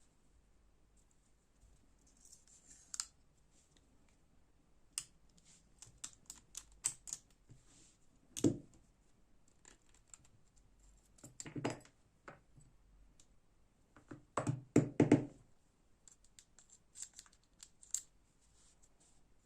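Light, scattered clicks and taps of a folding knife and small hand tools being handled while the knife is taken apart, with a few duller knocks about eight seconds in and again around fourteen to fifteen seconds in.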